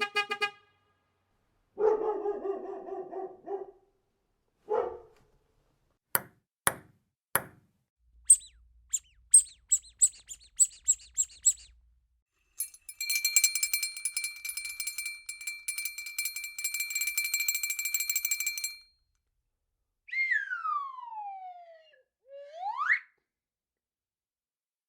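A string of separate sound effects one after another: a short pitched call, four sharp knocks, a quick run of high chirps, a long buzzing ring with a steady tone, then a whistle that slides down and back up.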